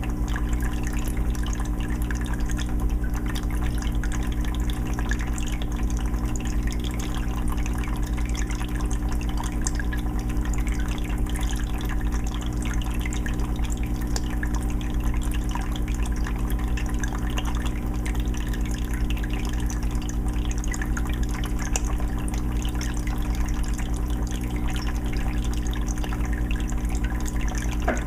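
Aquarium water filter running: water steadily splashing and trickling back into the fish tank, with many small drips, over a steady low hum.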